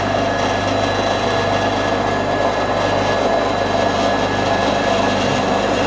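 Aircraft instrument test table running: a steady hum with a thin whine as its motor turns the table slowly clockwise, exercising the gyro instruments mounted on it.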